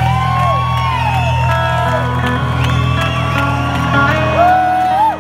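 Live band music heard from the audience: a lead line of smooth gliding slide-guitar phrases over sustained low bass and organ chords, with scattered whoops from the crowd.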